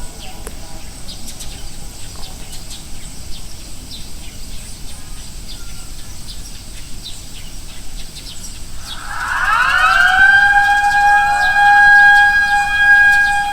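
Disaster-prevention radio loudspeaker siren starting about nine seconds in, rising in pitch and settling on a steady wail, with several overlapping echoes of the rise. It is the signal for a moment of silent prayer. Before it there are only short chirps over a quiet background.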